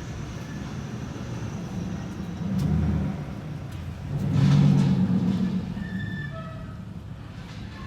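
Pickup truck engine running at low speed as the truck pulls ahead. It rises twice, briefly near the third second and again for about a second around the middle.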